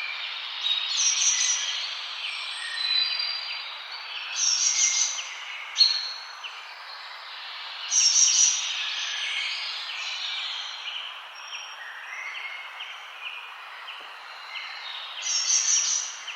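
Several forest birds singing and chirping over a steady background hiss. A louder phrase of rapid high notes comes back four times, about every three to four seconds at first and once more near the end.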